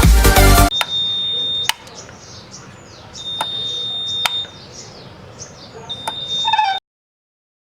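After electronic background music cuts off, a 12 V buzzer sounds three times, each a steady high-pitched beep of about a second with a click as it switches on and off, spaced about two and a half seconds apart. Birds chirp faintly behind it.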